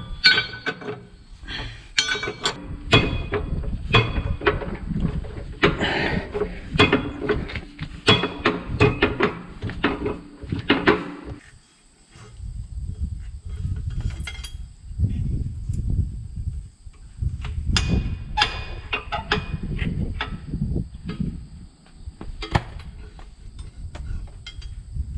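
Steel clanks and knocks from fitting a tractor quick hitch and drawbar, some ringing briefly, thick for the first ten seconds or so. After a short lull they thin out to scattered knocks over a low rumble.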